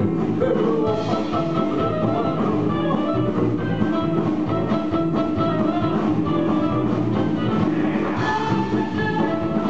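Live band playing an instrumental passage of an upbeat song, led by a played guitar with a drum kit behind it.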